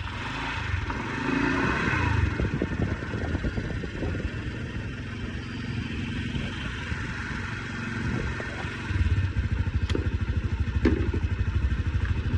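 Motorcycle engine running, with its rapid low firing pulses growing louder and more even about nine seconds in.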